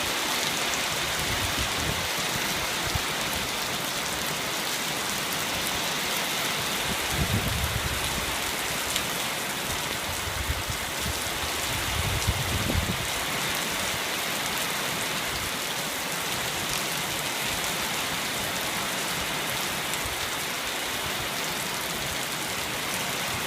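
Steady rain falling and pattering on surfaces, an even hiss throughout. Two brief low rumbles rise under it, about seven and twelve seconds in.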